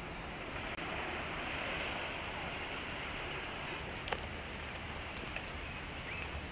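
Steady outdoor ambience of forest and shore: a constant hiss of wind, leaves or insects, with a faint click about four seconds in and a short rising chirp near the end.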